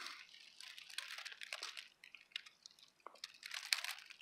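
Faint, irregular crackles and rustles of dry leaf litter, with a louder cluster about three and a half seconds in.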